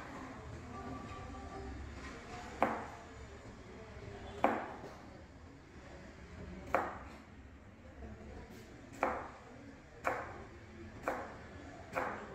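Kitchen knife chopping through carrot onto a cutting board while cutting julienne strips: about seven separate, sharp chops, spaced unevenly one to two seconds apart.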